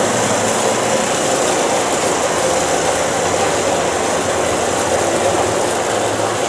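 Steady, loud running noise of heavy engines and machinery, with a faint constant hum and no distinct impacts.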